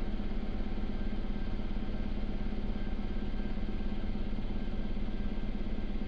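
Sikorsky S-92 helicopter in cruise flight, heard from inside the cockpit. It is a steady drone with a strong low hum and a fast, even beat, with faint thin whines above it.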